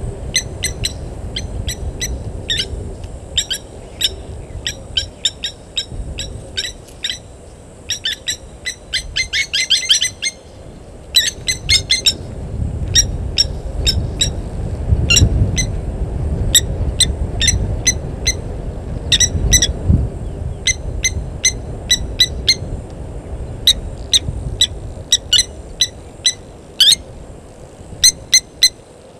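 Birds calling: short, sharp chirps repeated in quick series, at times in fast dense runs, over a steady low rumble.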